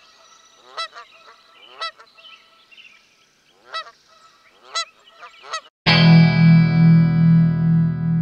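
Geese honking: a string of single honks a second or so apart, some louder than others. Nearly six seconds in, loud rock music with distorted electric guitar starts suddenly.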